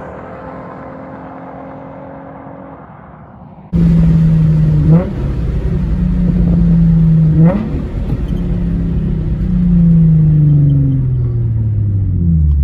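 Infiniti G35's VQ 3.5-litre V6 with its catalytic converters replaced by test pipes, loud exhaust drone under way. About a third of the way in the sound jumps suddenly from a fainter, fading engine note to a loud, close one. Near the end the engine note falls steadily as the revs drop.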